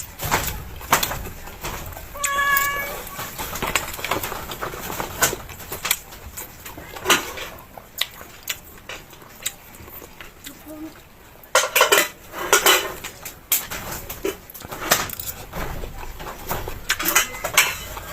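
Eating sounds: utensils clicking against dishes and chewing, in short irregular bursts. A brief high pitched call sounds about two and a half seconds in.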